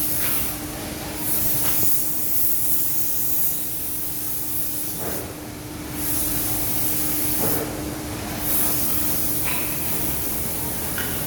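ATK 687 two-stroke chainsaw running steadily, a constant hum under a loud hiss. The high hiss drops away briefly three times.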